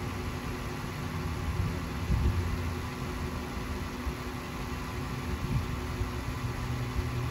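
Steady low mechanical hum under a light hiss, with a brief thump about two seconds in and a smaller one near five and a half seconds.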